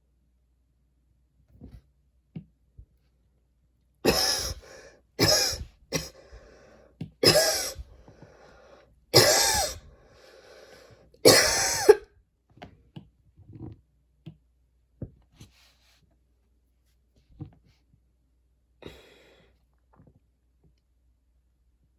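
A woman's coughing fit: about six loud coughs over some eight seconds, the last the loudest, followed by a few small mouth clicks and a breath.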